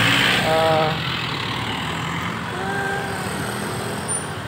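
Street traffic: vehicle engines running and idling steadily, with one louder vehicle passing in the first second.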